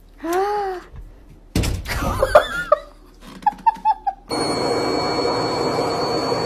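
A domestic cat meows once, and a little later gives a row of short chirping calls, with a louder noisy stretch in between. About four seconds in, a front-loading washing machine's steady running noise takes over, with a faint high whine.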